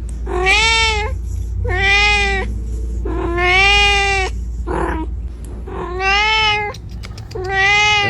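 Kitten meowing five times in a row, high-pitched calls of about half a second to a second each, the third the longest. These are a kitten's calls for its mother.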